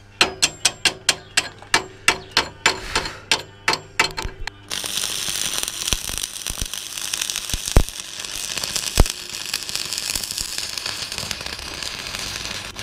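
A quick run of metal hammer blows on steel, about four a second, ringing. About five seconds in a stick (arc) welder strikes up and crackles steadily as a stainless steel rod is run along the cracked steel frame, with a few sharp pops, cutting off just before the end.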